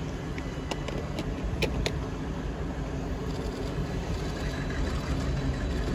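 Diesel locomotive engine running in the distance as the train approaches at dead-slow speed, a low rumble that grows slightly louder; a few sharp clicks about one to two seconds in.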